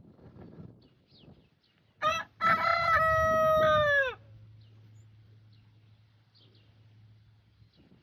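Rooster crowing once, about two seconds in: a short first note, then a long held call that drops in pitch as it ends.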